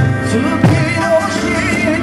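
Eisa drumming: Okinawan hand drums and a barrel drum struck in time with a sung folk song, with two hard drum strokes, at the start and about two-thirds of a second in.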